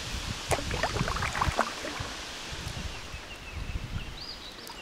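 Kayak paddle working river water: a cluster of splashes and gurgling drips lasting about a second, over a low rumble of wind on the microphone.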